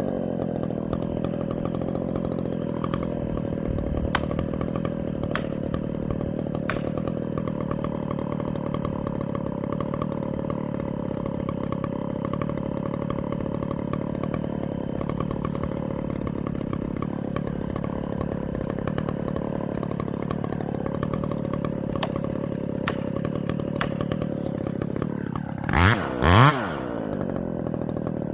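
Chainsaw engine idling steadily, then revved up and back down twice in quick succession near the end.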